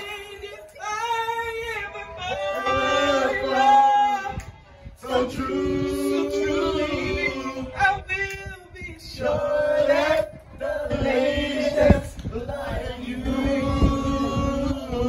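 A small group of men singing together, one voice carried through a handheld microphone and a portable speaker. The held notes are broken by short pauses between phrases.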